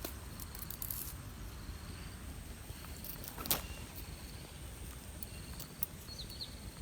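Outdoor countryside ambience: a steady high insect drone over low wind rumble, with a few brief crackles.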